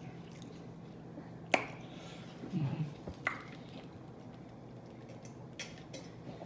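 Close-up eating mouth noises: two sharp wet lip smacks, about a second and a half and three seconds in, with a short low murmur from the throat between them and a few faint smacks later on.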